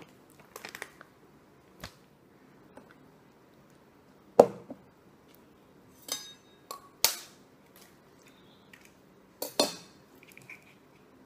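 Scattered sharp knocks and clinks of kitchen items against a steel pan, the loudest about four seconds in. Near the end come two quick knocks as an egg is cracked on the pan's rim.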